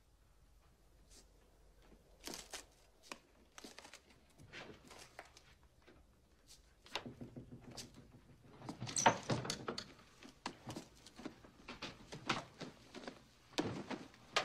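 Objects being rummaged through and moved by hand: irregular knocks, scrapes and rustles, busiest and loudest about nine seconds in.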